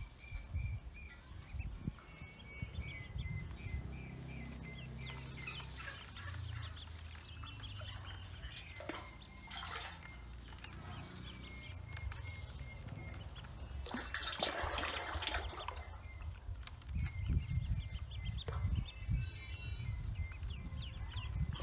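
A flock of ducklings peeping in quick runs of short, high calls while they swim in a metal basin, with light splashing of water and a louder noisy burst about fourteen seconds in. A low rumble runs underneath.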